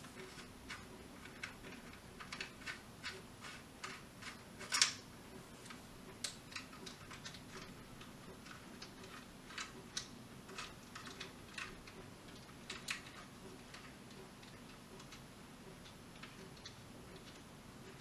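Irregular small metallic clicks and ticks from a 20-gauge pump-action shotgun being taken apart by hand as its magazine cap is unscrewed, with one sharper click about five seconds in; the clicks thin out in the last few seconds.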